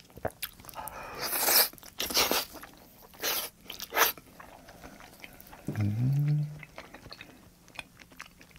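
Close-miked eating of raw salmon sashimi: four loud wet mouth noises in the first four seconds as slices go into the mouth, a short hummed 'mmm' rising in pitch about six seconds in, then soft chewing.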